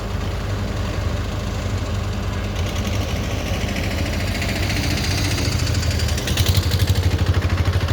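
Excavator's diesel engine running steadily; from about six seconds in the sound takes on a fast, even pulsing.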